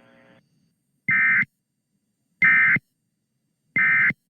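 Three short, identical bursts of Emergency Alert System SAME data tones, about a second and a half apart: the end-of-message code that closes an EAS warning.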